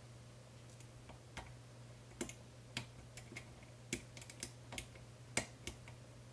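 Faint, irregular clicks and ticks of a lock pick lifting and rotating the pins inside a Medeco cam lock during single-pin picking, the sharpest click about five and a half seconds in. A low steady hum runs underneath.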